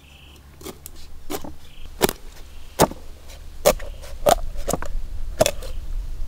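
Cleaver cutting and chopping through a raw duck's carcass on a wooden chopping block: about ten sharp knocks and crunches at uneven intervals, the loudest ones coming roughly once a second from about two seconds in.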